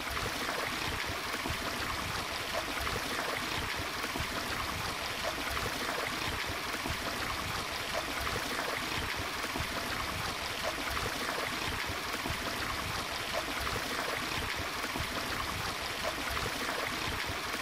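Small rocky stream splashing and trickling over stones in a steady, even rush of water, picked up by a BM800 condenser microphone run without phantom power.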